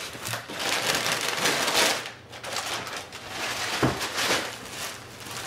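Crumpled packing paper and plastic air-pillow wrapping crinkling and rustling as hands dig through a cardboard shipping box, loudest in the first two seconds. A single light knock about four seconds in.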